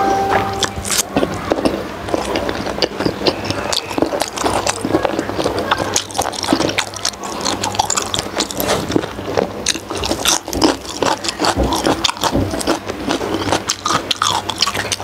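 Close-up chewing of steamed pig skin and raw greens: a dense, continuous run of wet mouth clicks, bites and light crunches, with a faint steady low hum underneath.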